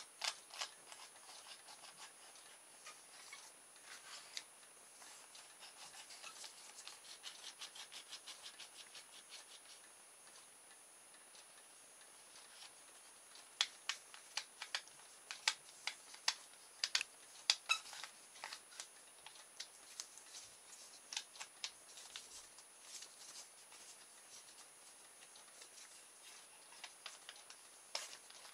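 Handling noise of a kit motor's shaft in its orange plastic base: small plastic clicks and rubbing as the loosely fitted shaft is turned and moved in its holes. A run of quick rubbing strokes comes several seconds in, and sharper clicks follow around the middle.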